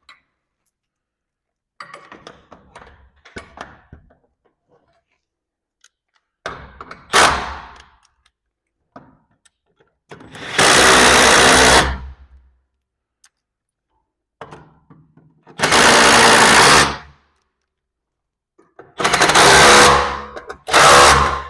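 Power drill driving screws in short bursts of a second or two, four or five times, with light clicks and rattles of metal parts between them.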